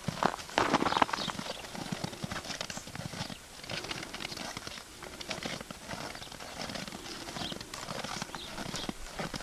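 Hoofbeats of an American Paint Horse walking under a rider on snow-covered ground: a steady run of irregular footfalls, with a louder burst of noise a little before one second in.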